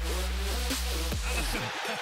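Electronic dance music with a heavy, steady bass line and sweeping synth tones; the bass cuts out about one and a half seconds in.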